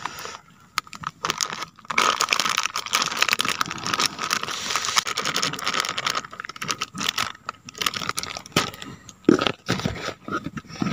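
Plastic packet of gram flour (besan) crinkling and rustling as it is tipped and shaken to pour the flour into a steel bowl, with a few sharper clicks near the end.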